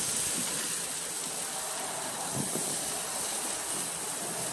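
Goat meat sizzling on a charcoal grill: a steady hiss.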